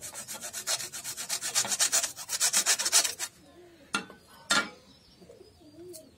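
Hacksaw blade sawing through a small mixer-grinder switch held in pliers, in rapid, even strokes that stop about three seconds in. Two sharp knocks follow about a second later.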